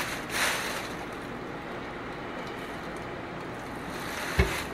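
Thin plastic shopping bags rustling as they are opened and spread, in two quick bursts near the start, then a single dull thump about four seconds in.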